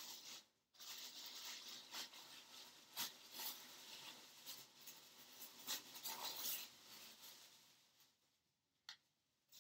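Tissue paper rustling and crinkling as clothes are unwrapped, with a few sharper crackles; it dies away near the end.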